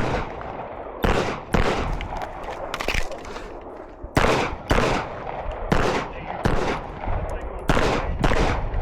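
Live-fire gunshots during a timed IDPA course of fire: about ten sharp shots at an irregular pace, some in quick pairs, with short gaps between strings.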